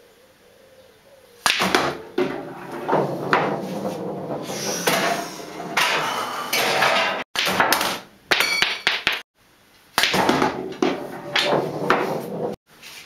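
Pool balls on a pool table: a sharp click about a second and a half in as the cue strikes the cue ball into the object ball, then a long stretch of balls knocking and rolling. The sound cuts off abruptly a few times, and after a short break there is more knocking and rolling.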